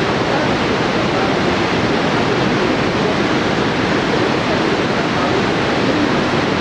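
Water rushing down the Itaipu Dam's open concrete spillway: a loud, steady whitewater rush.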